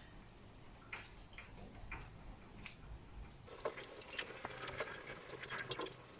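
Faint scattered clicks and taps of hands handling the parts of a shallow-well water pump during dismantling. The clicks become busier a little past halfway.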